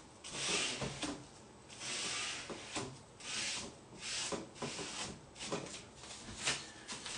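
A cloth rubbing in short, repeated strokes over decoupage tissue paper freshly glued to a wooden table top, pressing the paper down. There are about ten swishes, some quick and close together.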